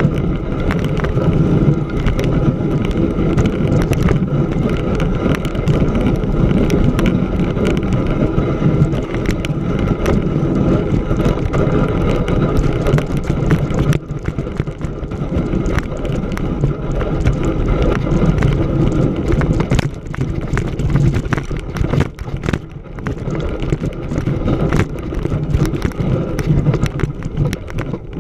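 Fat-tire bicycle rolling over packed snow: a continuous rumble of the knobby tires with frequent clicks and rattles from the bike.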